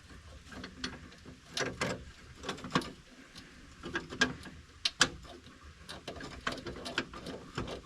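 Irregular small metallic clicks and taps as the heater cable's barrel nut is fitted and tightened on a VW Beetle heater box lever by hand.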